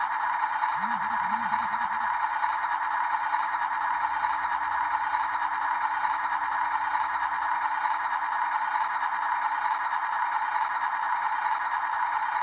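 Steady rattling whir of a radio-controlled toy construction vehicle's small motor and gears, holding at one level throughout.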